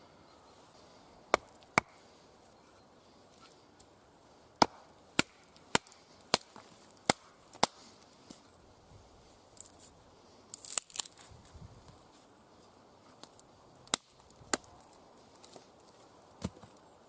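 A Cold Steel SRK knife being driven into a log to split it: a string of sharp wooden knocks, eight in the first half and three more near the end, with a short crackling rustle of wood in between.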